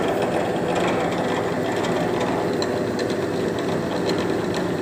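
Vertical column drill machine running at a steady hum, its motor driving the spindle and twist drill bit through a V-belt and step-cone pulleys.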